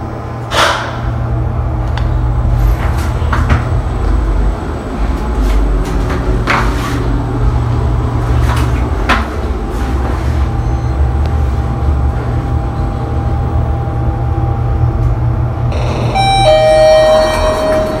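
Passenger lift car travelling, a steady low hum with occasional clicks, then near the end a two-note arrival chime, a higher note followed by a lower one, as the car reaches its floor.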